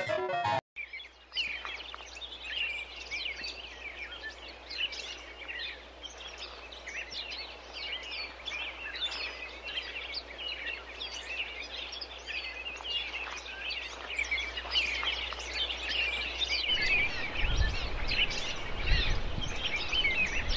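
Guitar music cuts off just under a second in, giving way to outdoor ambience with many birds chirping densely and continuously. In the last few seconds, low rumbling thumps join in.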